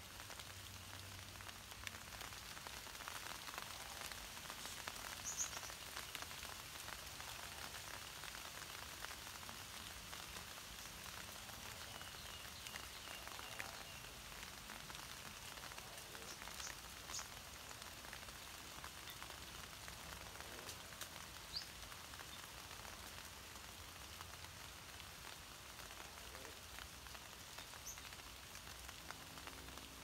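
Light rain falling steadily, a faint even hiss, with a few brief high chirps or ticks scattered through it.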